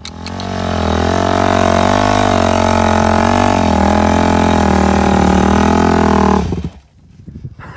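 Yamaha dirt bike's single-cylinder engine revving hard and held high, its pitch wavering a little, then cutting off suddenly about six and a half seconds in.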